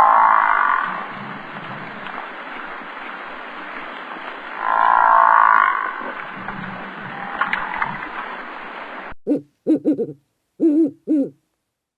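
Animal calls: two longer, louder calls over a steady hiss, then, after a cut, four short low hooting notes in quick succession.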